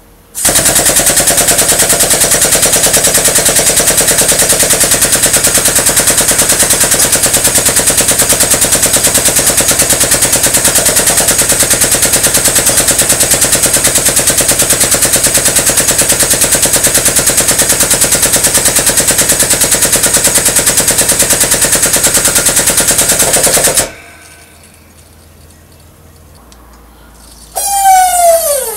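Pneumatic wrench hammering in a rapid, even rattle as it turns a jack screw, forcing a high-speed steel keyway broach through a cast-iron pulley on the final cutting pass; it runs for about 23 seconds and stops suddenly. Near the end comes a short, loud squeal that falls in pitch.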